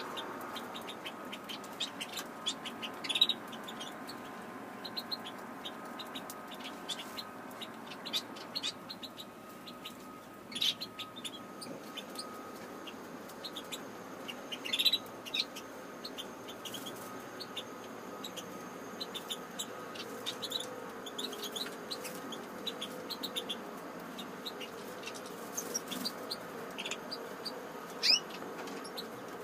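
Caged goldfinches and canaries calling: scattered short, high chirps and tweets, some in quick runs, a few louder calls standing out, over a faint steady hum.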